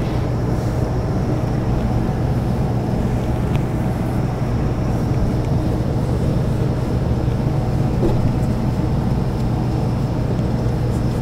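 Steady low hum with a faint hiss: constant background noise of the recording room.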